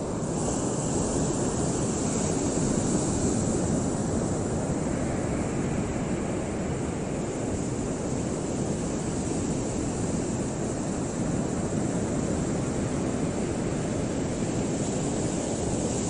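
Steady low rumbling outdoor noise of wind and waves on choppy open water, with no bird call.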